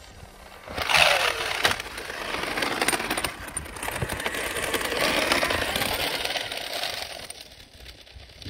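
Traxxas X-Maxx RC monster truck driving on grass, its brushless electric motor whining up and down in pitch, with rattling and clicking from its damaged differential crown and pinion gears. It starts loudly about a second in and fades near the end.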